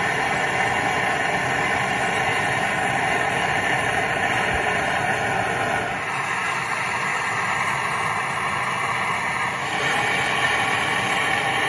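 Gas torch flame running steadily as it melts 18K gold in a ceramic crucible. The hiss dips slightly about six seconds in and grows again near ten seconds.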